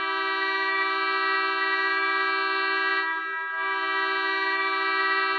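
Hockey goal horn blaring one long, steady multi-tone blast that wavers briefly about three seconds in and then holds on.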